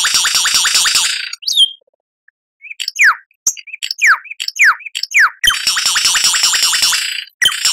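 Lyrebird singing: a rapid trill of descending notes breaks off, then after a short pause comes a run of loud downward-sweeping whistles, followed by another long rapid trill.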